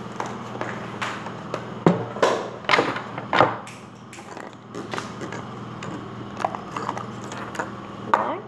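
Hollow plastic surprise-egg capsules clacking and knocking on a tabletop as they are handled and pulled apart, with the sharpest clacks between about two and three and a half seconds in.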